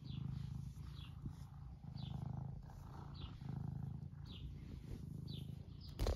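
Domestic tabby cat purring steadily while being stroked, the purr swelling and fading with each breath about once a second. A sharp knock near the end is the loudest sound.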